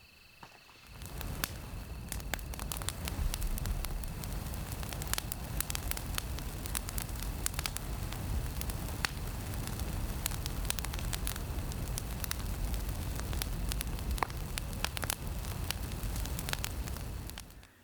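Campfire burning close by: a steady low rumble of flame with frequent sharp crackles and pops. It starts about a second in and cuts off just before the end.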